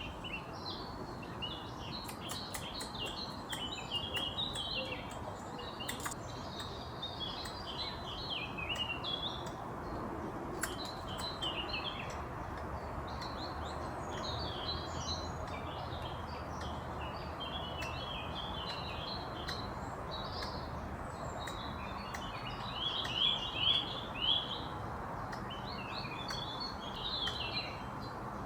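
A squirrel's agitated alarm chirps, short hiccup-like calls in quick runs repeating again and again, with a few louder ones near the end, over a steady background hiss.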